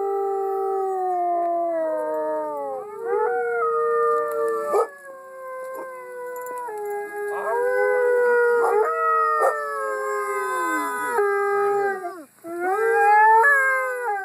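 Several dogs howling together in long, overlapping howls, each one held and then falling in pitch at its end. There is a brief gap about twelve seconds in, then the loudest howl near the end.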